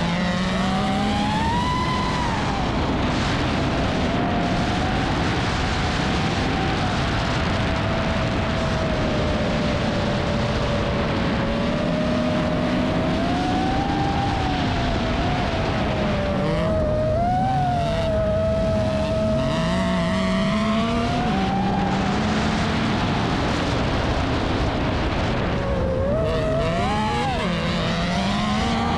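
FPV racing drone's motors and propellers whining, the pitch wavering up and down with the throttle, over the engine and tyre noise of an autocross buggy racing on the dirt track.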